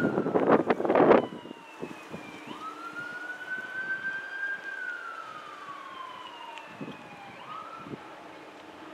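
A distant siren wailing, rising quickly and then sliding slowly down in long cycles. Loud rumbling bursts, like wind buffeting the microphone, fill the first second.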